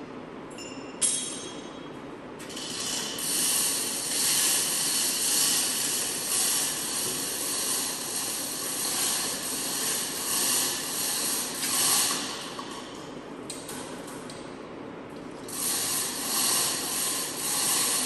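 Compressed air hissing loudly in two long spells: from about two seconds in until about thirteen, and again near the end, swelling and fading, over a steady low hum. A single sharp click comes about a second in.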